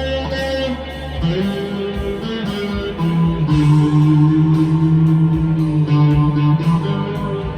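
Electric guitar, a Squier Classic Vibe Telecaster, played through a Blackstar V2 amp's modulation effect, picking notes in A minor. A few held notes ring out in the middle.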